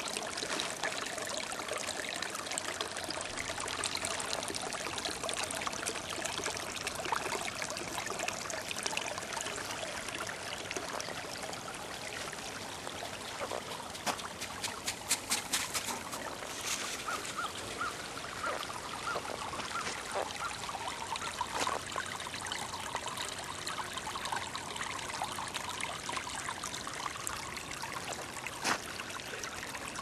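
Shallow brook trickling and babbling over stones, a steady running-water sound, with a quick run of clicks about halfway through.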